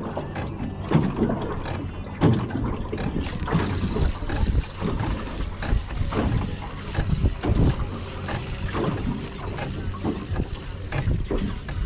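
Wind and water against the hull of a metal jon boat, a steady low rumble, with scattered small knocks and clicks from handling a spinning rod and reel.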